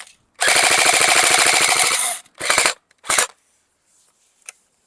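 Game Face Insurgent electric airsoft AK-47 firing fully automatic: a rapid burst of about two seconds, then two short bursts, then a faint click near the end.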